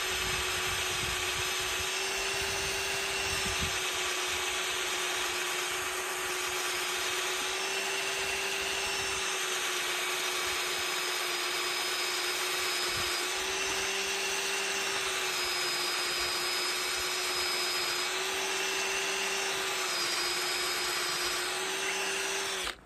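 Power drill running continuously as it bores a hole into a gate post for a screw-in gate anchor, its pitch shifting slightly now and then, then stopping abruptly near the end.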